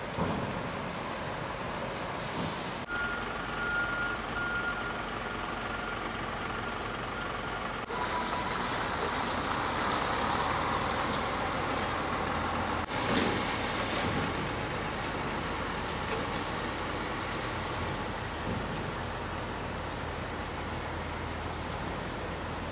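Ferry-port vehicle noise, with trucks and cargo vehicles running. An electronic beeping tone sounds for about five seconds a few seconds in, like a vehicle's reversing alarm.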